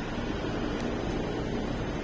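Steady background hum and hiss, with no separate knocks or clicks.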